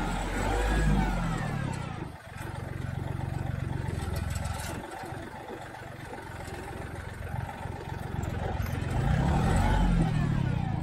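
Compact tractor engine running under load, revving up about a second in and again near the end, as it strains to pull a post-hole digger auger that is stuck deep in the ground.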